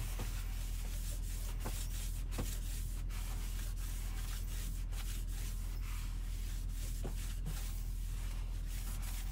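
Paper towel rubbing back and forth across the side of a plastic holding tank, a soft irregular scrubbing as the surface is wiped down with rubbing alcohol to degrease it, over a steady low hum.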